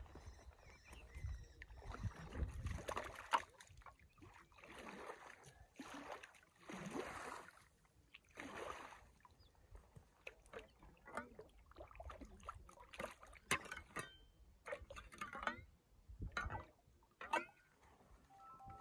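A small shovel being dipped and swished in shallow lake water, making a run of splashes and sloshes. These are followed by short sharp clicks and knocks.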